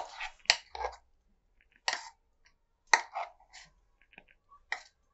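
Thick ground urad dal batter being spooned out of a steel mixer jar into a glass bowl: a handful of separate short clicks, scrapes and wet plops, spaced unevenly.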